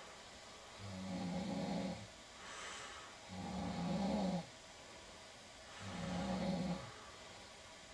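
A woman snoring in her sleep: three rasping snores, each about a second long, come roughly every two and a half seconds. A softer hissing breath out follows each snore.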